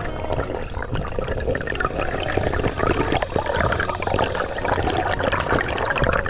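Water splashing and bubbling close to the camera, a dense crackling wash with many small pops.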